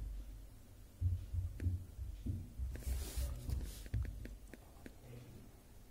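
Soft low thumps of hands and a paper tile on a tabletop, with a brief scraping hiss about three seconds in as the tile is slid round, and a few faint clicks.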